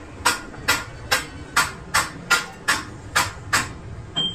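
Hammer blows on metal in a steady rhythm, about three a second, each with a short ring; the blows stop about three and a half seconds in.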